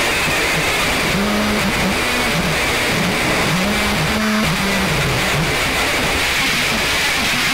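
Experimental noise music: a loud, dense wall of static hiss. From about a second in, a low tone wavers and steps up and down in pitch beneath it.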